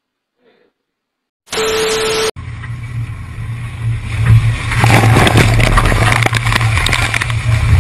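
Near silence, then a brief loud burst of noise with a steady tone that cuts off sharply. Then a fishing boat in heavy seas: a steady low engine drone under wind and sea noise, with a wave crashing over the deck about five seconds in.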